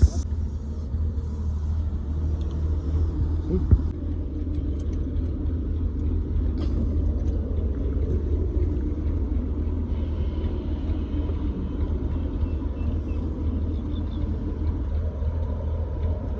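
Steady low mechanical rumble, with a sharp knock at the start and another about three and a half seconds in.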